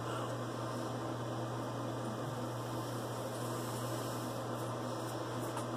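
Steady electrical hum with a faint hiss. Near the end come a few faint scrapes of a straight razor over lathered stubble.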